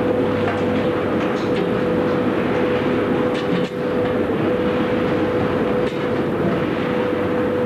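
Steady din of a seafood processing line's conveyors and machinery running, with a constant hum and light scattered clatter.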